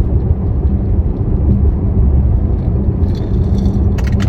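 Car interior road noise while driving: a steady low rumble of engine and tyres inside the cabin.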